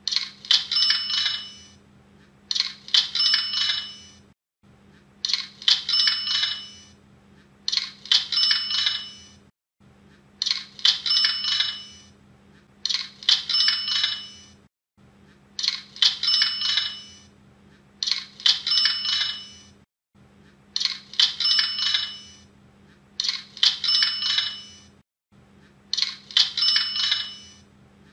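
Cash-register 'ka-ching' sound effect, the sale notification Hotmart plays for a completed sale: clicks and clinking capped by a bright bell ring. It repeats about every two and a half seconds.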